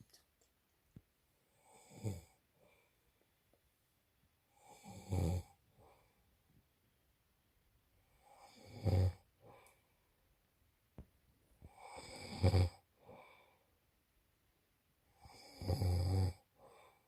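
A man snoring loudly in his sleep: five snores about three and a half seconds apart, the first one weaker than the rest.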